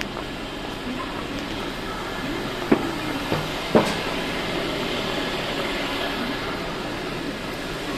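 Steady hum of vehicles running near a station bus terminal, with three sharp knocks a little past the middle.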